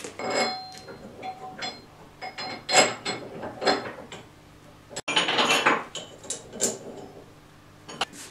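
Metal rigging hardware clinking and clanking as a steel cable and its fittings are handled on a pull-test rig: a series of sharp metallic knocks with short ringing, the loudest about three seconds in.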